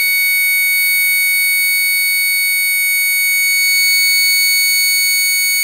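Electronic alarm hooter of an oven temperature controller sounding one steady, unbroken high-pitched tone: the over-temperature alarm, set off because the sensor reading has gone above the 40 °C upper limit.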